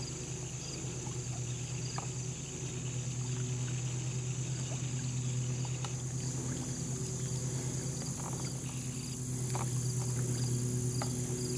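Small, scattered splashes from channel catfish feeding at the surface of a pond. Under them runs a steady low hum, with insects, likely crickets, chirping steadily in the background.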